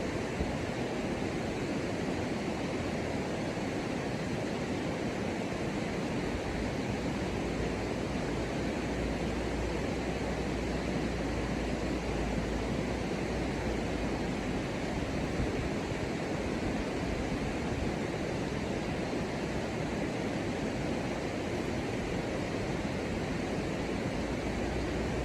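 Steady rushing noise that stays even throughout, with no distinct calls, knocks or voices.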